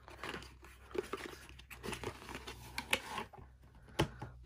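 Plastic shrink-wrap being torn and peeled off a CD album box, crinkling and crackling in irregular bursts, with one sharp click about four seconds in.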